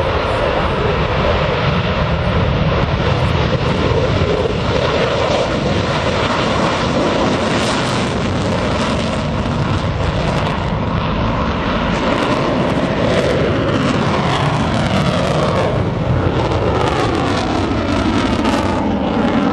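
F-22 Raptor's twin Pratt & Whitney F119 turbofan engines in afterburner as the jet lifts off and climbs steeply: a loud, steady rush of jet noise. From about two-thirds of the way through, a pattern of tones sweeps downward in pitch as the jet climbs away.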